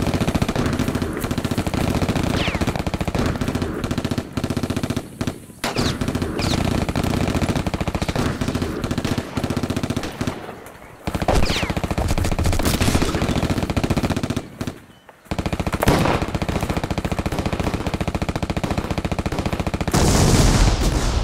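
Battle sound effects of sustained automatic machine-gun fire, rapid strikes running on with a few brief pauses, with a few short whistling sweeps over it and a louder burst near the end.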